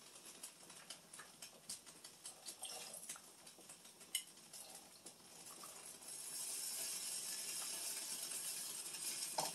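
Drained cooked elbow macaroni tipped from a colander into an enamel pot of soup: faint scattered clinks and soft knocks, then a steady hiss from about six seconds in.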